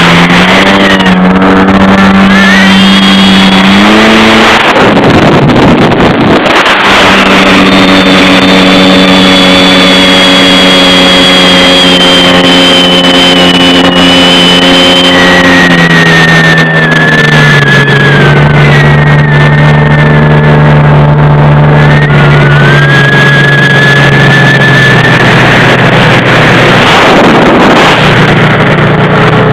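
Jet ski engine running hard under way, its pitch climbing about four seconds in and dropping again past the middle as the throttle changes, with rushing water and wind noise that swells now and then.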